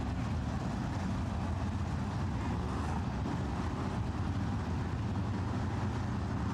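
Several 410-cubic-inch winged sprint car V8 engines running at racing speed around a dirt oval, heard as a steady, unbroken mass of engine noise.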